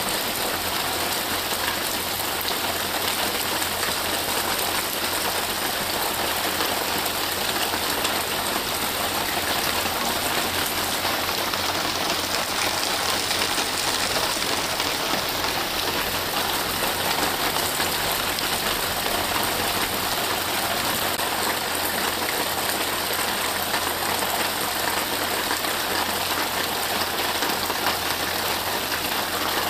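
Steady rain falling on trees and grass: a continuous, even hiss that swells a little around the middle.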